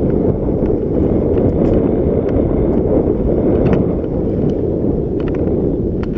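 Wind rushing over the microphone of a bike-mounted camera, together with the rumble of mountain bike tyres rolling over a dry dirt trail. Scattered small clicks and ticks come through now and then.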